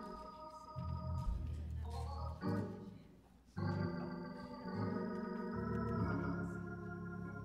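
Organ playing sustained chords that change every second or so, breaking off briefly about three seconds in and coming back in fuller.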